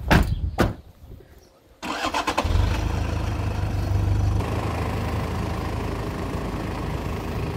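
Two car doors shut, about half a second apart. About two seconds later a Toyota Land Cruiser Prado's engine cranks, catches and runs steadily as the SUV moves off.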